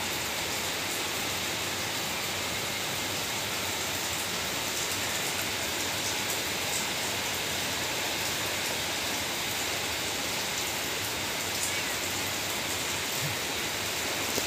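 Steady rain: an even hiss with no let-up, broken by a few faint ticks.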